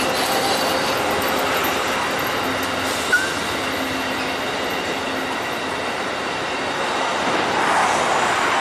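Amtrak Northeast Regional passenger train rolling slowly past, steel wheels on the rails with a faint squeal, and a single sharp click about three seconds in.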